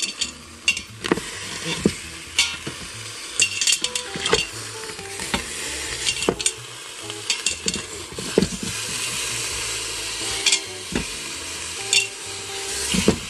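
Pork sizzling as it browns in oil in an Instant Pot on sauté, with a utensil knocking and scraping against the pot many times as the meat is stirred.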